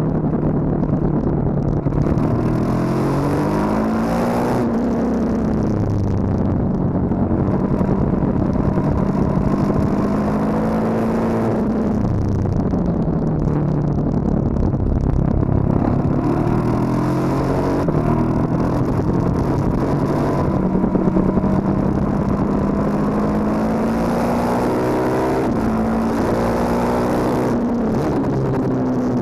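KTM 1290 Super Duke R's V-twin engine pulling hard, its pitch rising under acceleration and easing off through the corner. Near the end it revs up through several upshifts, with a rush of wind noise.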